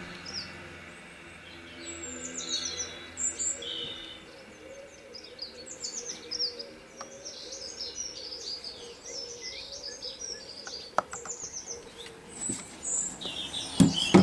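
Several songbirds chirping and trilling. A sharp click about eleven seconds in, and a louder knock near the end.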